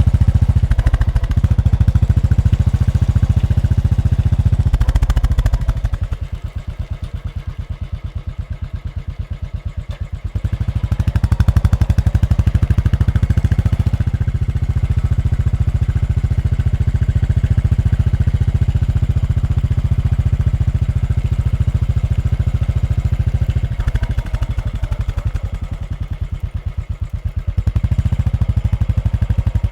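Royal Enfield Bullet's single-cylinder engine running with its steady, closely spaced beat. It drops noticeably quieter about six seconds in, comes back up about ten seconds later, and dips again near the end before rising once more.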